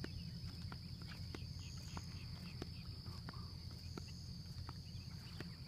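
Insects chirring, a steady high even tone, over a low steady rumble, with faint ticks scattered throughout.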